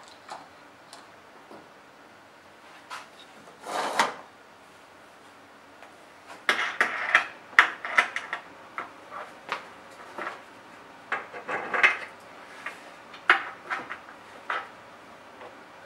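Clicks, knocks and a short scrape of hardware and a wooden featherboard being handled and fitted on a router table. The knocks come thick and fast from about six seconds in.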